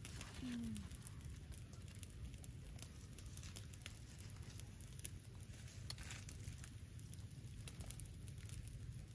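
Faint, scattered crackles and clicks from a small wood campfire and from hands rustling among leaves, over a low steady background hum. A brief low falling sound about half a second in.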